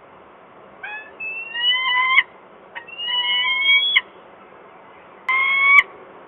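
Female peregrine falcon giving three drawn-out, slightly rising calls: two of over a second each, then a shorter one near the end. The title hears her tone as encouraging.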